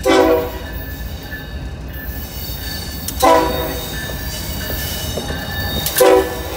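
Diesel freight locomotive approaching, sounding three short horn blasts about three seconds apart over the steady low rumble of its engine and the train on the rails. The lead unit is a GE ES44AC.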